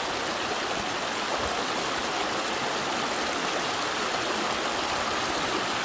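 Creek water running steadily through a small sluice box as the last of the dredge concentrates are washed through it.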